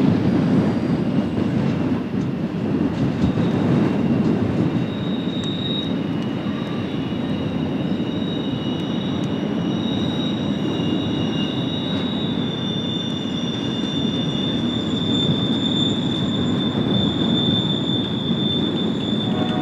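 Union Pacific freight train's cars rolling past with a steady rumble, and high steady wheel squeal from the wheels setting in a few seconds in and holding.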